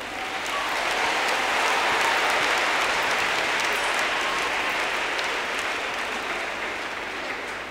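Audience applauding, building over the first couple of seconds and then slowly dying away.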